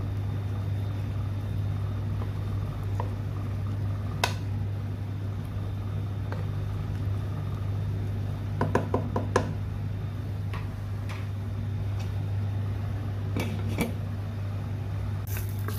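A wooden spoon stirring chicken stew in a nonstick pan, knocking against the pan: one tap early, a quick run of five or six taps about nine seconds in, then a glass pot lid set down on the pan near the end. A steady low hum runs underneath.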